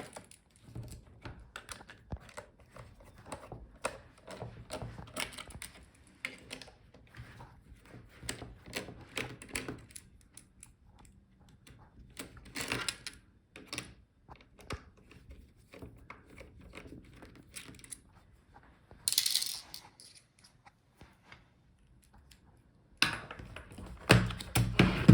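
Irregular small clicks and taps of a screwdriver working Phillips screws out of a laptop's plastic bottom cover. There is a short scraping hiss about two-thirds of the way in, and louder knocks near the end.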